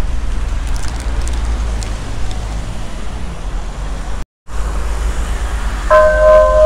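Street traffic: cars passing with a steady low rumble. The sound cuts out for a moment just past four seconds, and near the end a held, pitched tone with overtones starts, the opening of music.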